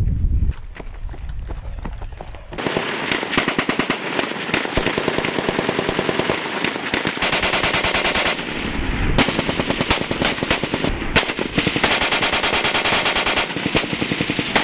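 Machine gun firing long automatic bursts of rapid shots, starting about two and a half seconds in, with a short lull about eight seconds in.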